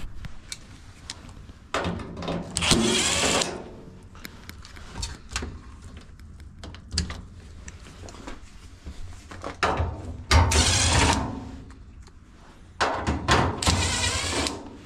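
Washing machine's metal cabinet panel being pulled and worked loose by hand: three stretches of scraping and rattling with scattered knocks and clunks. The panel is still held by a bracket screw at the bottom.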